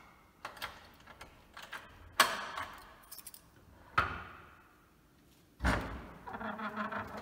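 Iron latch and fittings of an old heavy wooden door being worked: several clicks, then two loud metallic clanks that ring on in the stone room. Near the end comes a low thump and a creaking as the door is pulled open.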